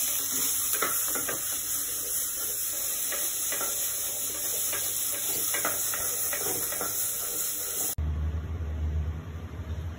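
Steady sizzling hiss of food frying, with scattered light clicks of kitchen utensils. About eight seconds in it cuts off suddenly and a low hum takes over.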